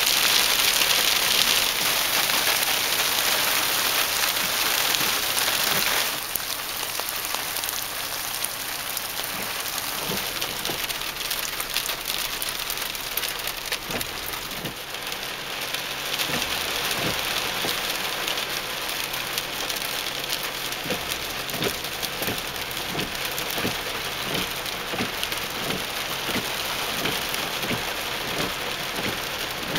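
Rain mixed with small hail hitting a car's roof and windshield, heard from inside the car: a steady hiss full of separate sharp ticks. It eases slightly about six seconds in.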